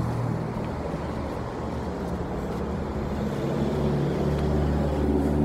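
City street traffic: a steady low engine hum from vehicles on the road, growing louder in the second half.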